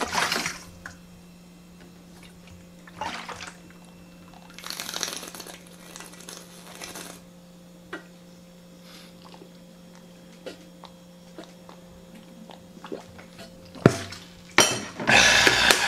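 Gulping and water sloshing in a large plastic water bottle drunk from in long swigs, with small plastic clicks of the bottle being handled. A steady low hum runs underneath, and near the end comes a knock followed by a louder burst of noise.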